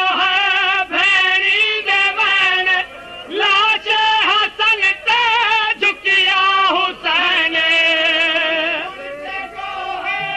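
A solo voice singing a Punjabi devotional kalam (lament) in long melismatic phrases, with wavering held notes and short breaks between phrases.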